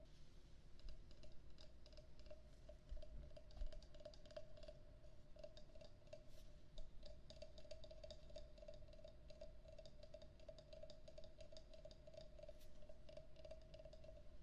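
Wooden frog percussion instrument worked by hand: a quiet, continuous run of quick small wooden clicks over a steady pulsing tone.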